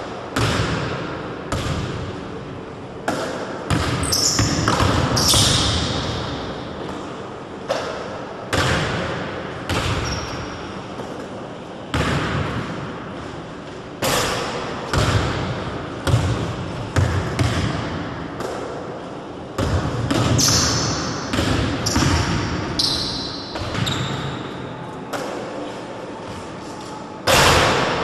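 Basketball bouncing and thudding on a wooden gym floor, a string of irregular impacts each followed by a long echo through the large hall, with a few short high-pitched squeaks among them.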